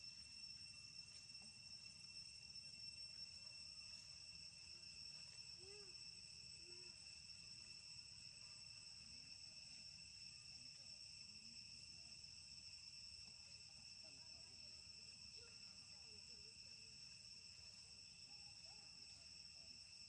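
Faint steady chorus of insects, a continuous high-pitched drone at a few fixed pitches. A few faint short squeaks come through about six seconds in and again near the end.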